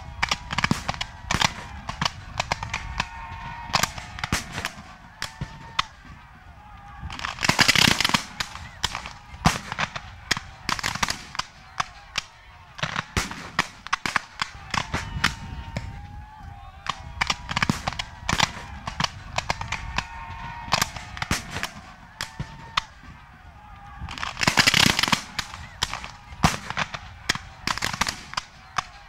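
Black-powder muskets firing blanks in a mock battle: scattered single shots throughout, with two massed volleys of many overlapping shots about eight and twenty-five seconds in.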